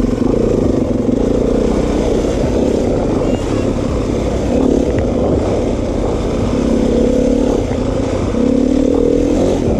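Dirt bike engine running at fairly steady, low revs while riding down a steep, rocky trail, its pitch shifting slightly up and down.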